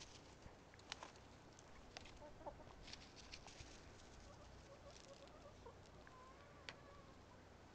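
Hens clucking faintly, a few soft wavering clucks, with scattered small ticks.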